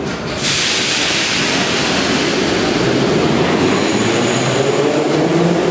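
Moscow Metro train pulling out of a station: a loud rush of wheel and running noise starts about half a second in, and a traction-motor whine rises in pitch as the train picks up speed.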